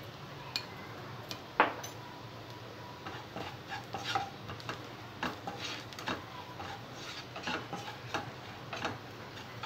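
Spatula stirring and scraping chopped onion, garlic and spices around a nonstick kadai in short, irregular strokes, over a faint sizzle of the oil. One sharp knock about one and a half seconds in.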